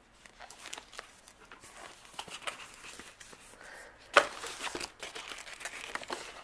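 White sheet wrapping rustling and crinkling as it is handled and pulled out of a cardboard camera box, with one sharper, louder crackle about four seconds in.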